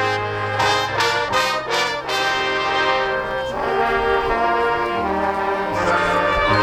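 High school marching band brass playing loud sustained chords over low bass notes, with a few sharp percussion hits in the first two seconds.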